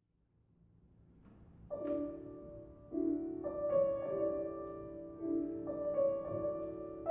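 Steinway & Sons grand piano played solo: slow, held chords begin about two seconds in, each new chord ringing on under the next.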